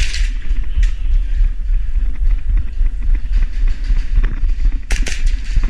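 Steady low rumble of handling and movement noise on the microphone during airsoft play, with a couple of sharp cracks about five seconds in, likely airsoft gun shots.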